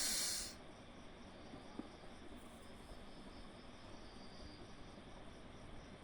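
A forceful breath out ends about half a second in, followed by faint, steady high-pitched insect chirping over a low hiss.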